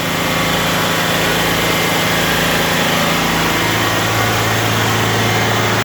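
Machinery running steadily with a constant low hum.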